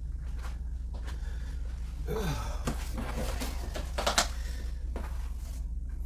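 Cardboard box and packing being handled: rustling around two seconds in and a sharp knock just after four seconds, over a steady low hum.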